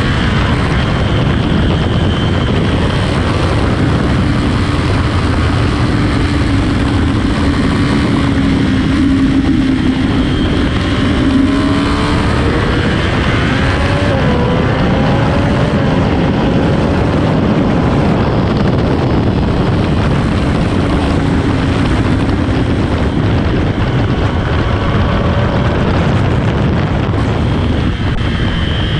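Sport motorcycle with stock exhaust running at speed on a race track, its engine note drifting and rising with the throttle, under heavy, steady wind rush.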